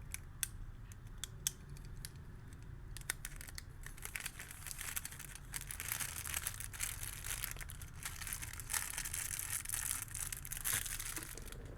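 Packaging being torn open and crinkled by hand: a few sharp clicks and snaps in the first three seconds, then a long stretch of dense rustling and tearing.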